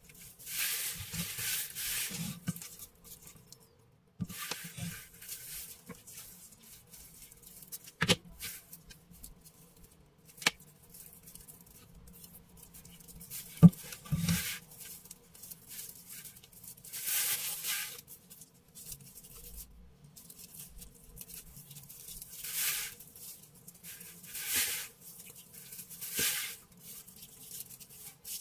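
Dry natural raffia strands rustling and scratching as hands pull, gather and knot them, in repeated short bursts, with a few sharp clicks between them, the loudest about halfway through.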